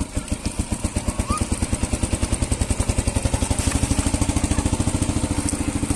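A small engine running with an even, rapid chugging beat. Its pulses quicken over the first second or so to about ten a second, then hold steady.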